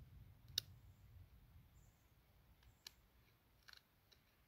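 A steel knife cutting into a cedar hearth board to carve the V notch for a friction fire, heard as a few faint, sharp clicks and ticks: the loudest about half a second in, then more near three seconds and around three and a half to four seconds in.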